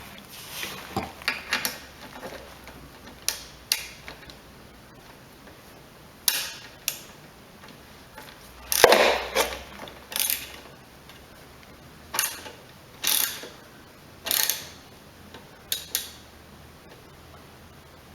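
Hand tools working on a small lawnmower engine: a ratchet wrench clicking in short strokes, with metal clinks and scrapes, in about a dozen separate bursts roughly a second apart. The loudest comes about nine seconds in.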